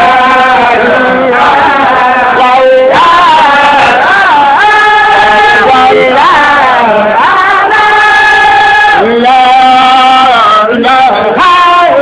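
Unaccompanied sung Sufi zikr chant: a voice holds long notes with sliding, ornamented turns between them.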